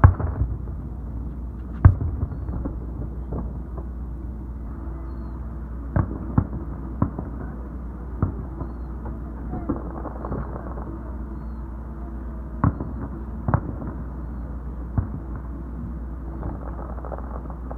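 Aerial firework shells bursting: a series of about ten sharp bangs at irregular intervals, the loudest right at the start and about two seconds in. A steady low rumble runs underneath.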